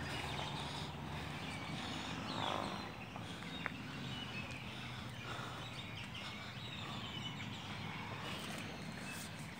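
Faint outdoor evening ambience: birds chirping and twittering over a low steady hum that fades after about three seconds, with a single small click partway through.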